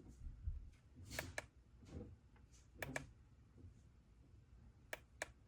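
Faint handling noise with a few sharp little clicks, mostly in pairs, coming every second or two.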